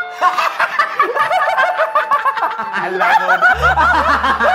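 Two men laughing loudly and uncontrollably together in quick, repeated cackles. A low steady tone comes in under the laughter about three and a half seconds in.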